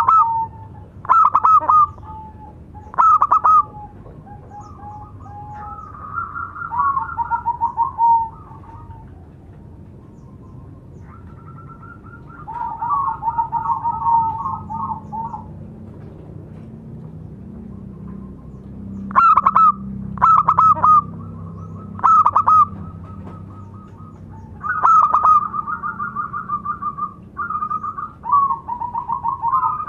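Zebra dove (local perkutut) cooing: a few loud, clipped notes in a row, then rapid rolling trills of coos. The phrases come near the start, around the middle and again through the last third, with pauses between.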